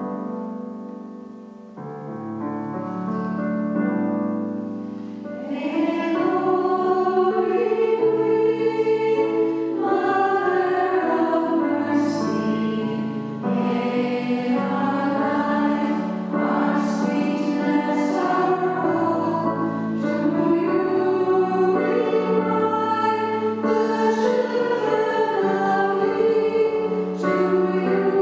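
Choir of nuns, women's voices, singing a Marian hymn with keyboard accompaniment. The keyboard plays alone for the first few seconds before the voices come in about five seconds in.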